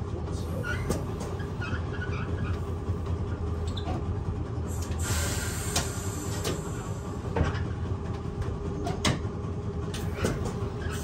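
Inside a heritage tram standing still: a steady low hum, scattered clicks and knocks, and a burst of hiss lasting about a second and a half, about five seconds in.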